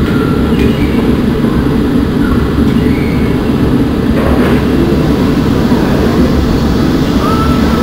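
Rock-factory machinery running with a steady, even rumble, with faint voices in the background.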